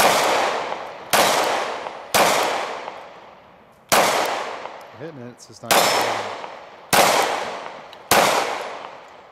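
Seven shots from a Glock 43 single-stack 9mm pistol, fired about a second apart with a longer pause near the middle. Each shot is followed by a trailing echo.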